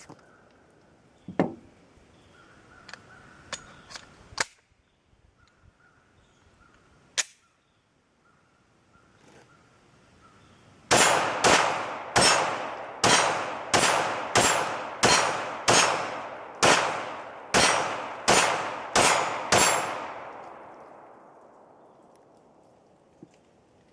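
Glock 19 pistol being fired: a few single shots, then a steady string of about fifteen shots at roughly two a second, each followed by a ringing echo tail.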